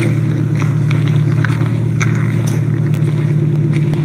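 A vehicle engine idling with a steady low hum, with scattered short crunching steps on snow.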